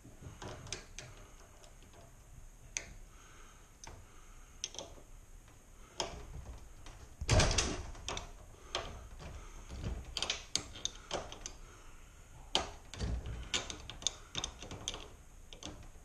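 Two metal wrenches clicking and clinking on the turnbuckle and its lock nut on a garage door opener's rail as the nut is worked loose: irregular metal ticks and knocks, the loudest a clank about seven seconds in.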